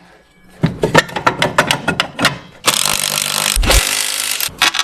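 Metal tools clicking and knocking against suspension parts, then an air tool runs for about two seconds in a loud hiss, broken briefly once, as the old rear suspension arm is taken off.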